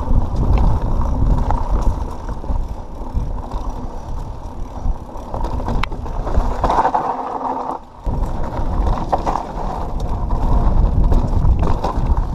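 Pivot Switchblade mountain bike on 27.5+ plus tyres being ridden over a dirt trail, heard from a GoPro on the bike: a steady low rumble of tyres on dirt with clicks and rattles from the bike, easing off briefly just before eight seconds in.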